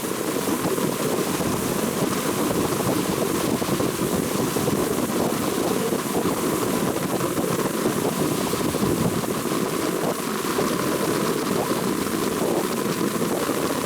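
An engine running steadily with a rushing noise over it, the sound of a vehicle under way.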